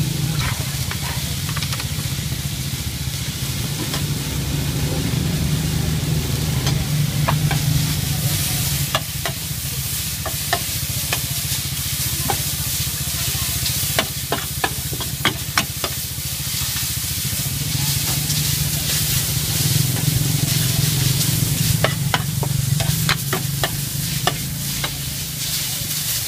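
Instant noodles and bean sprouts sizzling on a large flat iron pan, with a steady low hum underneath. A metal spatula scrapes and clicks against the pan in repeated bunches as the noodles are stir-fried.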